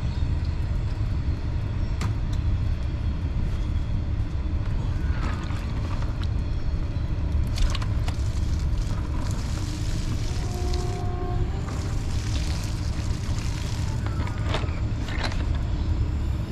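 A steady low rumble throughout, with water splashing onto grass as a cooler tub of water is tipped out about halfway through.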